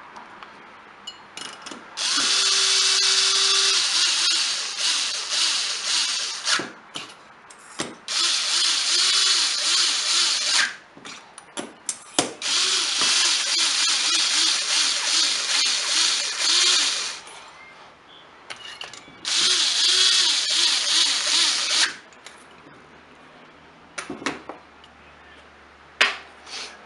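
Power drill running in four long runs of a few seconds each, with clicks and knocks between them: the cylinder bolts of a Stihl BR420 blower's two-stroke engine being cinched down.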